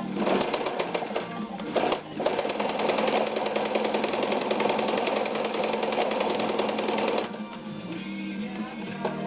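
Ideal 601 sewing machine running at speed: a fast, even clatter with a brief dip about two seconds in, stopping about seven seconds in. Background music plays throughout.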